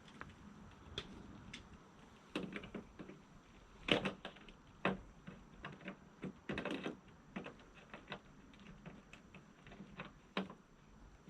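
Irregular light clicks and knocks with a few short rustles, from hands and tools working a piece of flexible plastic sheeting.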